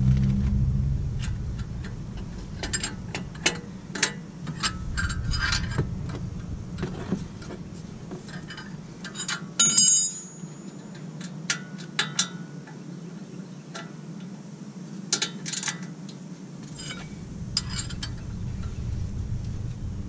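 Scattered metallic clicks, clinks and knocks of hand tools and parts at a car's front brake caliper and wheel hub, with a louder clatter about ten seconds in. A low rumble is there at the start and comes back near the end.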